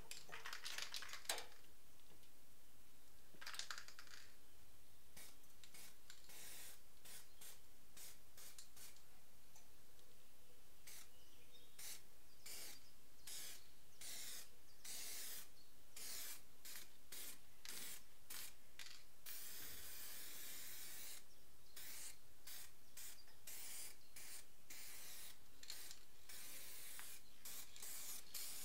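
Irregular series of short, rough scraping strokes, each lasting a second or less, like hand work against stone and metal.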